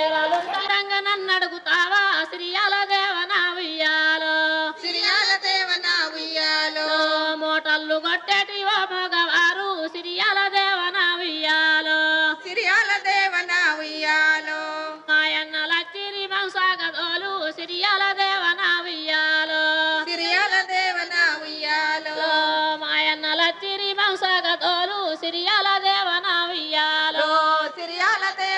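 A song with a woman singing a continuous melody over music.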